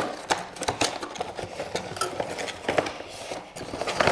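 A small cardboard box being opened by hand, its tucked flaps pulled free: an irregular run of scrapes, rustles and small knocks.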